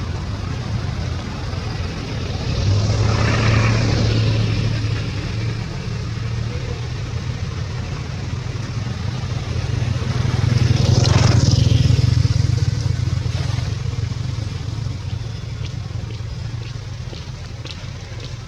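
Motor vehicles passing twice over a steady low engine hum, each swelling and fading, about three seconds in and again, louder, about ten seconds in.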